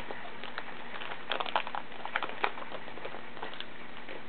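Baseball card pack wrapper crinkling and cards being handled as the next pack is opened: two short clusters of crackly rustles, the first about a second in and the second near the middle, over a steady faint hum.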